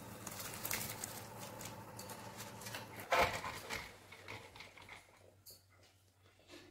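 Basmati rice being poured into a pot of boiling water, the grains pattering and splashing into the water, with one sharper knock about three seconds in; after that it goes fainter.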